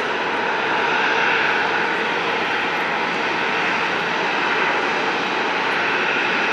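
Jet airliner's engines, a steady loud rushing noise that swells slightly about a second in.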